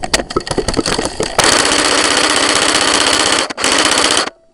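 Electric airsoft rifle (Tokyo Marui G3 AEG) firing on full auto: a loud, fast, even buzzing rattle of the gearbox cycling, starting about a second and a half in, with a short break in the middle and stopping just before the end. Before the burst, a few scattered clicks and knocks.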